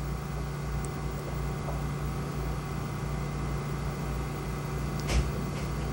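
Steady low background hum with a faint noise haze, and one short click about five seconds in.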